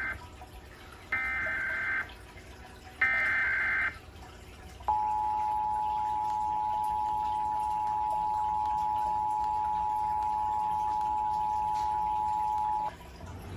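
Emergency Alert System Required Monthly Test: the end of one SAME header data burst, then two more data bursts of about a second each, followed by the EAS two-tone attention signal (853 and 960 Hz together) held steady for about eight seconds before cutting off.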